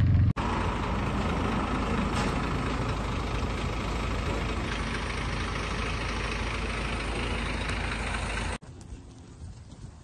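A car-transporter truck's engine running steadily at idle, with a constant low hum under a hiss. It cuts off abruptly near the end, leaving a much quieter background.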